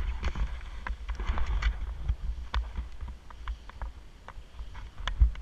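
Wind rumbling on the microphone of a skier's body-worn camera while skiing, with skis scraping over snow during the first two seconds. Sharp clicks and knocks run through it, the loudest a single knock about five seconds in.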